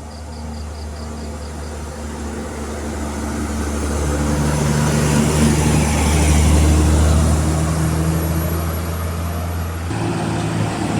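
A bus's diesel engine pulling up an incline. It grows louder as it approaches, is loudest about two-thirds of the way through, then eases off as it passes, and its low engine note shifts near the end.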